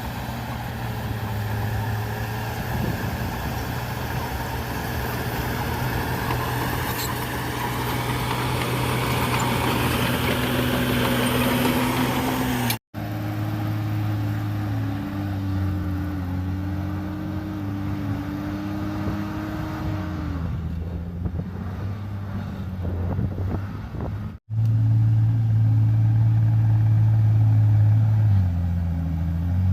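Bulldozer's diesel engine running under load, its pitch shifting up and down as it works. The sound breaks off sharply for an instant twice, at edits.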